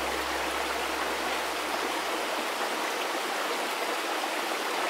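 A mountain stream rushing steadily over rocks: a continuous even wash of water noise.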